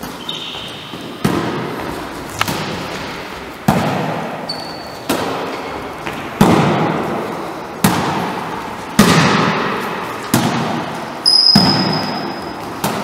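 Volleyball struck with both hands in overhead passes, batted back and forth over the net: about ten sharp slaps, a little more than a second apart, each echoing in a large hall.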